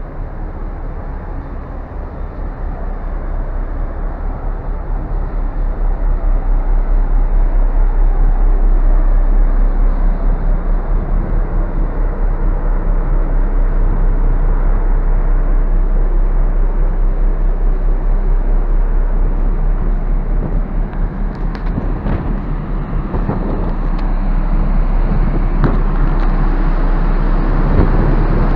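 Steady low rumble on the open deck of the ferry Ogasawara Maru under way, wind buffeting the microphone over the ship's drone. It grows louder a few seconds in, with a few light knocks near the end.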